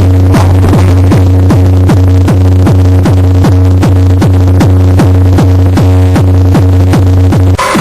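Loud electronic dance music with a heavy, sustained bass and a fast, steady kick drum about three beats a second; it breaks off briefly near the end.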